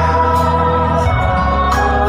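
Music with long, held choir-like chords over a strong bass and a steady beat.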